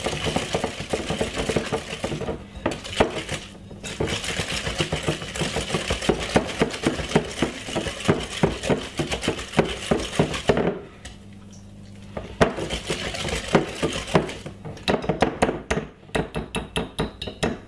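Wire balloon whisk beating creamed butter and sugar in a glass bowl: rapid clinking and scraping of the metal wires against the glass. The beating stops for about a second and a half roughly two-thirds of the way through, then resumes as slower, more separate clinks.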